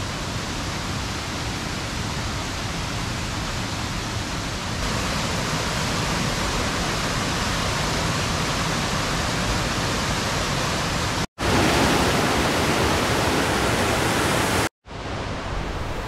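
Mountain stream rushing over rocks in a small cascade: a steady full hiss of water that grows louder about five seconds in and again a little later. It is broken twice near the end by brief silent gaps.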